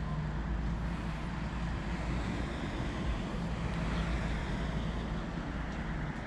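Steady outdoor background noise: a low rumble with an even hiss above it, and no distinct events.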